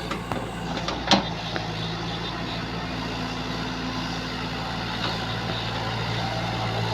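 Engine of a heavy earthmoving machine running steadily, with a sharp metallic clank about a second in.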